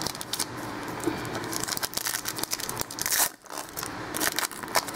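A trading card pack wrapper being torn open and crinkled by hand, a rapid run of crackling and tearing noises with a short pause a little past halfway, as the cards are pulled out.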